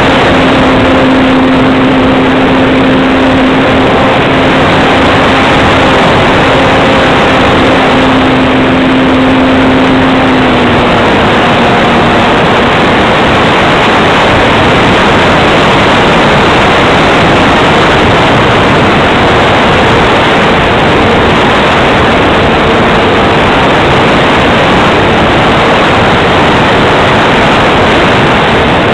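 Gee Bee Model R RC plane in flight, heard through a camera on its canopy: a loud, rough rush of wind and propeller noise over a faint steady motor tone that drops in pitch about ten seconds in.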